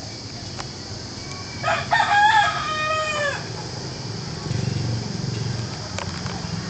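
A rooster crowing once, a loud call of about a second and a half that drops in pitch at its end, over a steady outdoor background with a low rumble.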